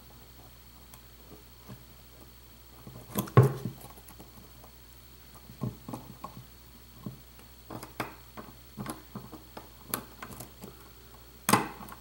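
Hook pick and tension tool working the pins of a Euro profile lock cylinder: scattered small metallic clicks and taps, with a louder cluster of clicks about three seconds in and a sharp click near the end. The core is held in a deep false set while the pins are picked.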